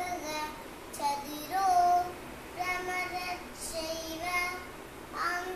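A young girl singing solo and unaccompanied, her voice moving between short phrases and a few long held notes.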